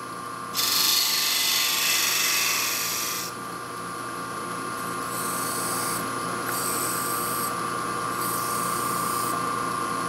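Wood lathe running with a steady hum and whine while a point tool scrapes a taper into the spinning wooden spigot, a loud cut lasting about three seconds near the start. Later come three shorter, lighter rubs against the spinning wood, the friction that leaves a burn mark at the top of the male thread.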